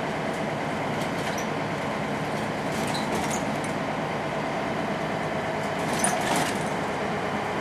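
Inside a Volvo B10M single-decker bus on the move: steady engine and road noise with a held whine, and loose body panels and windows rattling now and then, loudest in a brief clatter about six seconds in.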